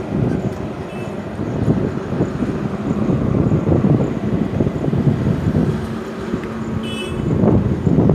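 Highway traffic with heavy trucks passing, a continuous loud rumble with wind buffeting the microphone. A brief high-pitched beep sounds about seven seconds in.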